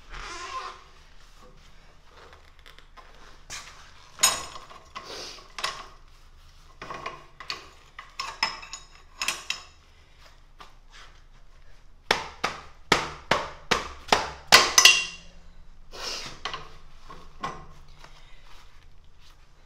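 Hand-cranked metal ring roller being turned as it bends a steel strip into a ring, giving irregular sharp metallic clanks and clicks. A quick run of about seven clanks past the middle is the loudest part.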